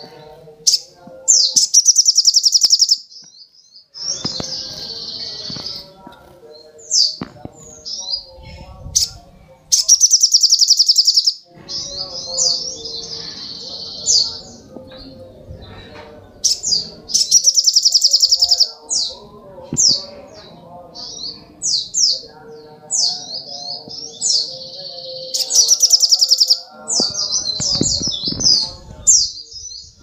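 Olive-backed sunbird singing: high, rapid chirping phrases broken by four loud, fast buzzing trills, each about a second or a second and a half long.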